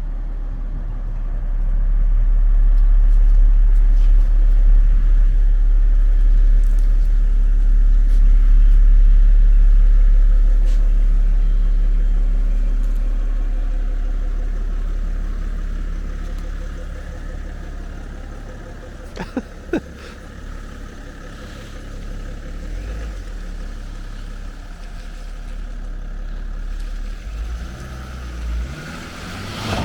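A car running with a steady low rumble that swells about a second in, then slowly fades away over about ten seconds. A few sharp clicks come near the middle.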